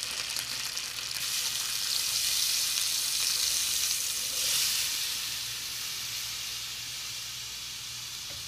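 Sofrito of onion, peppers, tomato and garlic sizzling in a hot pot as canned red beans and their liquid are poured in. The sizzling swells about a second in and eases off after about five seconds.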